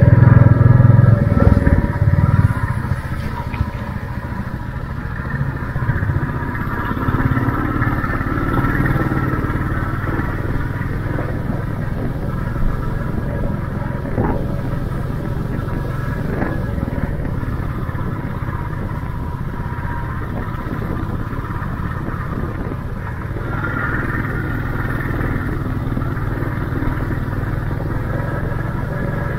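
Royal Enfield Classic 350's single-cylinder engine running while riding, heard from on the bike, with other motorcycles ahead. It is louder for the first two seconds or so, then settles into a steady drone.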